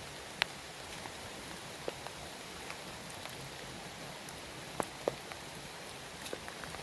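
Steady rain falling, with scattered louder drips and sharp ticks of drops landing close by.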